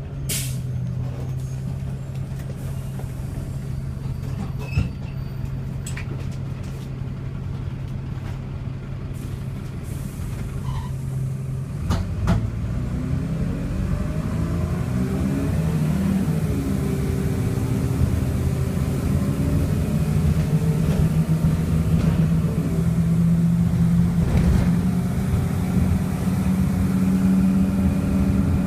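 Dennis Dart SLF bus's diesel engine and Allison automatic gearbox heard from inside the saloon, running at a steady note at first, with a short hiss of air near the start. About twelve seconds in there is a knock, the pitch wavers and changes, and the engine settles on a higher, louder note as the bus pulls away harder.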